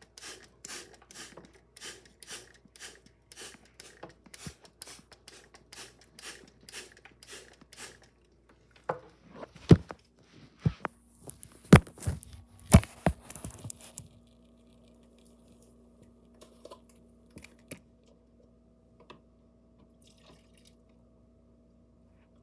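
Hand spray bottle being pumped about twice a second, each squirt a short hiss of mist. The squirting stops after about eight seconds and several loud knocks and handling bumps follow.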